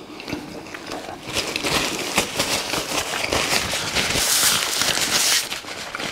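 Paper napkin rustling and crinkling close up as it is rubbed over the face and mouth, with many quick crackly clicks. The rubbing is loudest and hissiest a little past the middle.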